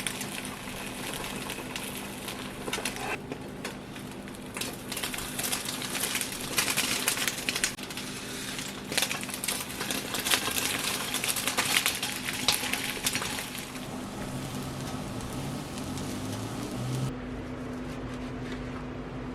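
Kitchen work sounds: irregular clicks, taps and crackles of handling, busiest in the middle, over a steady low hum.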